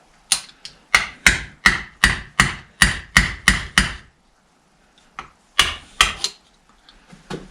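Hammer blows: a run of about ten quick strikes at roughly three a second, then a pause and a few more strikes, tapping a part of the tractor's bull pinion assembly into place.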